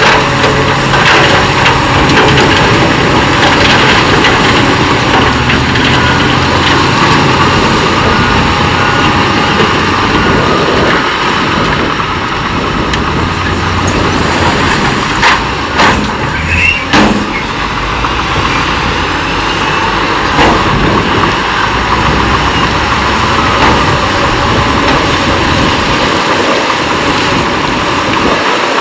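Heavy earthmoving machinery, a bulldozer and dump trucks, running steadily under load while working rock fill, with a few sharp knocks and clanks about halfway through.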